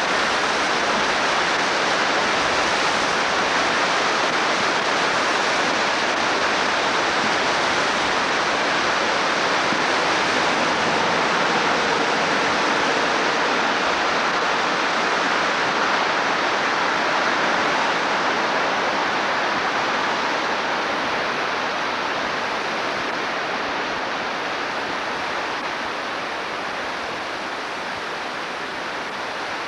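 Floodwater rushing steadily down a swollen creek, a continuous noise of fast water that grows a little softer over the last ten seconds.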